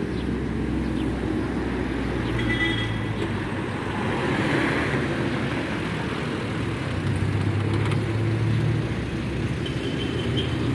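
Road traffic: motor vehicle engines running with a steady low hum, swelling as a vehicle passes about midway. Two short high-pitched tones stand out, one a couple of seconds in and one near the end.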